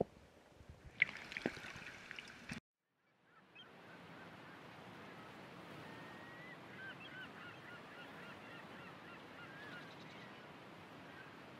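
After a brief cut to silence near three seconds in, a steady rush of outdoor river ambience carries many short, repeated bird calls from a flock, typical of waterfowl. Before the cut there are a few light clicks and chirps.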